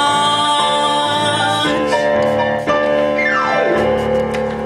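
Closing bars of a musical-theatre song: keyboard accompaniment holding long sustained chords, with a falling pitch glide about three seconds in.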